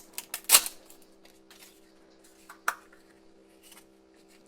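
Plastic toy packaging being handled and opened by hand: a few sharp clicks and crinkles, the loudest about half a second in and another just before the three-second mark, over a faint steady hum.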